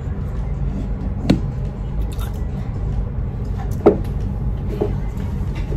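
Steady low rumble, with two short knocks about a second in and near four seconds in.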